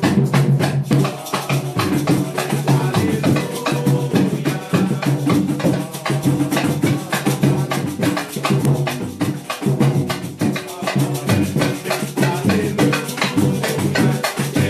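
Hymn music with a fast, steady percussion beat of drums and a shaker-like rattle over sustained pitched instruments.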